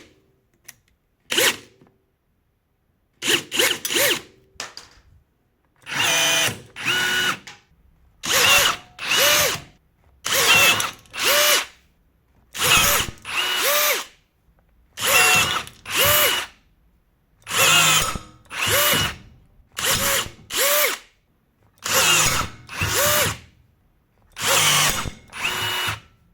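Cordless battery rivet gun's motor whining in short bursts, over and over. After a few scattered bursts they settle into pairs about every two seconds as the puller cycles, working 6 x 16 mm steel rivets.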